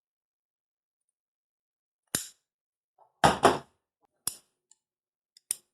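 Cutters snipping through the 3D printer's rubber timing belt, in short sharp clicks. There is one snip about two seconds in, a louder double snip just past three seconds, and two lighter clicks near the end.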